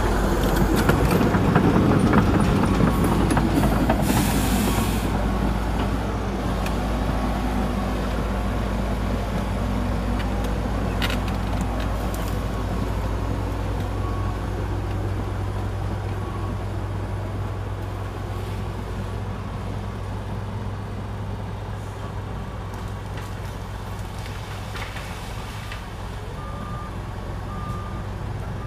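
Heavy diesel earthmoving machinery running, a deep steady engine drone that slowly grows quieter. A short hiss about four seconds in, a single click near the middle, and faint reversing beeps near the end.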